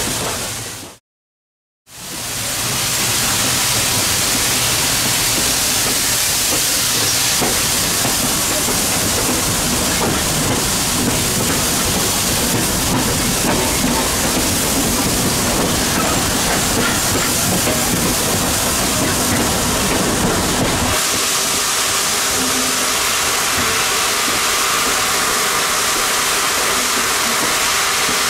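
Pennsylvania Railroad B4 0-6-0 steam locomotive 643 running with a train: a steady, loud hiss of steam and exhaust. The sound drops out briefly about a second in, and the low rumble falls away about three-quarters of the way through.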